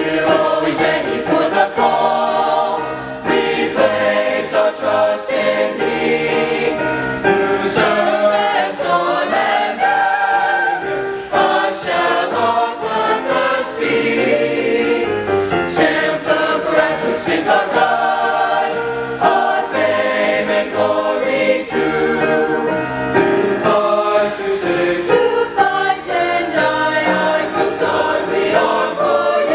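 A high school mixed choir of girls' and boys' voices singing together.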